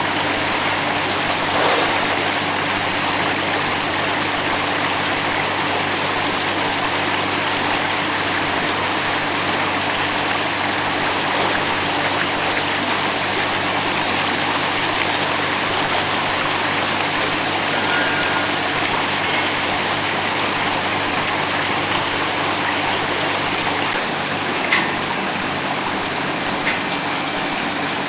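Automatic vegetable washing machine running: a steady rush of circulating, splashing water over a constant low motor and pump hum. A brief click comes near the end.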